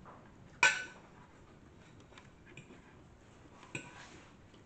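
A metal fork clinking against a ceramic plate while gathering noodles: a sharp clink about half a second in and another near the end, with faint light taps between.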